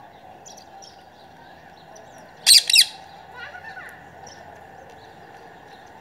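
Rose-ringed parakeet giving two loud, harsh screeches in quick succession about two and a half seconds in, then a fainter call. Faint chirps of small birds are heard throughout.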